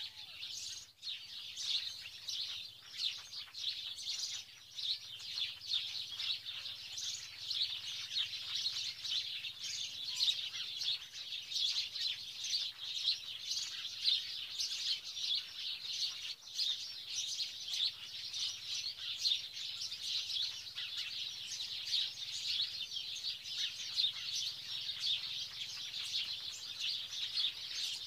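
A dense, continuous high chirping of many birds, with no pauses, over a faint low hum.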